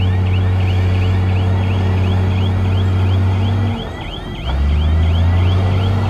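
Heavy construction machine's diesel engine running steadily, with a regular high squeak about three times a second. A little past halfway the engine briefly drops in level, then runs on at a lower pitch.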